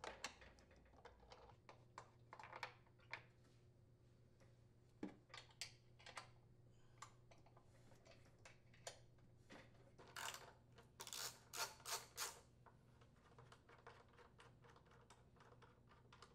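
Faint, scattered clicks and light metal-and-plastic taps from a socket tool working the blower housing mounting bolts on a Briggs & Stratton riding-mower engine, with a quicker run of clicks about ten to twelve seconds in.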